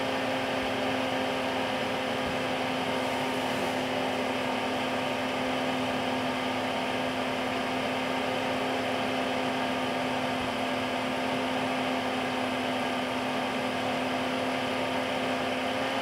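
Chinese diesel air heater's blower fan running at a steady hum of about 2,200 rpm with the fuel pump stopped. This is the shutdown cycle, in which the fan keeps blowing air through to dry out leftover fuel while the glow plug heats.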